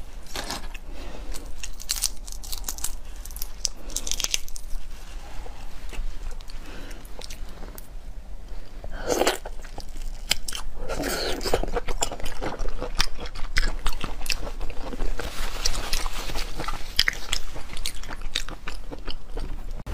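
Close-miked eating of boiled crustaceans: shells cracking and crunching as they are peeled by hand and bitten, with chewing between, in a string of short, sharp crackles.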